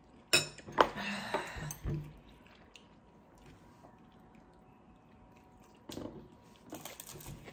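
A person slurping and gulping broth straight from an instant-noodle cup, a short loud burst in the first two seconds. About six seconds in, a breathy exhale through pursed lips.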